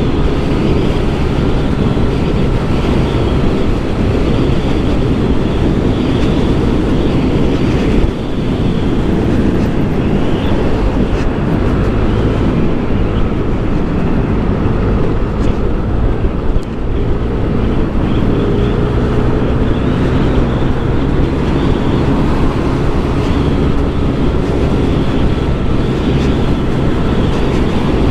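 Yamaha Aerox scooter running at road speed, a steady engine drone under heavy wind noise on the microphone, with slight rises and falls in engine pitch near the middle.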